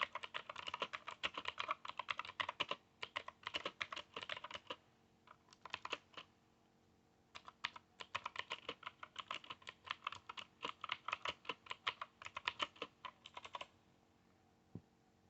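Fast typing on a Sumvision Acies mechanical keyboard with clicky blue switches, in runs of rapid key clicks broken by a pause about five seconds in and a stop near the end.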